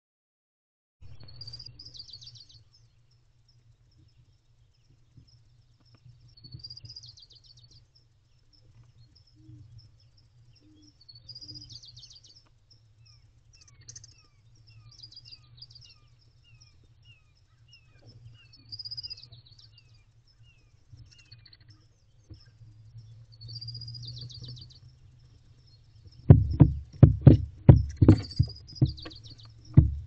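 Songbirds singing, a short high phrase every few seconds, over a steady low hum. Near the end, a run of loud knocks and thumps as barn owlets scramble and flap their wings on the nest box floor.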